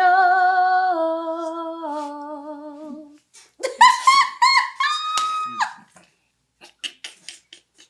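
A voice humming a long held note with vibrato, stepping down in pitch, then a much higher sung phrase ending on a held high note. A few faint clicks follow near the end.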